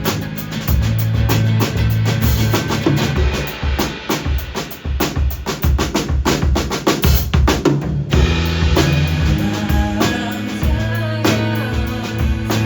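Live band playing an instrumental passage with the drum kit to the fore: a dense run of drum hits in the middle, over steady low bass notes.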